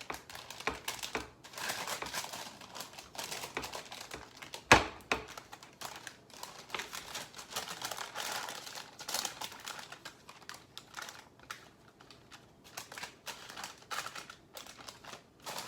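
Hands pressing crumbly crust dough into a parchment-lined glass baking pan: parchment paper crinkling, with irregular light clicks and taps and one sharper knock about five seconds in.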